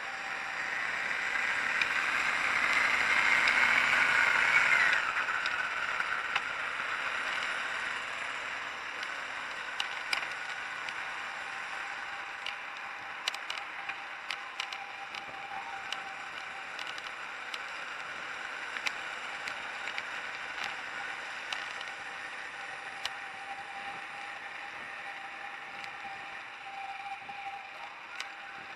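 Riding noise on a moving two-wheeler: a steady rush of road and wind noise with a steady tone, a whine that rises in pitch over the first five seconds and stops abruptly, and scattered light clicks.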